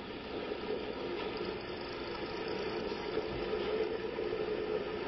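A vehicle engine running steadily in the background under an even outdoor noise, growing slightly louder towards the middle.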